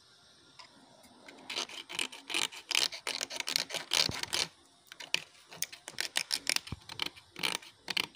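Sandpaper rubbing in short, uneven strokes on the broken plastic outlet neck of a Maruti Alto radiator, roughening it for gluing. The strokes start about a second and a half in.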